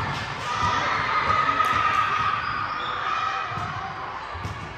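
Sounds of an indoor ball game in a large sports hall: scattered ball thumps and voices, with a held call partway through, all echoing in the hall.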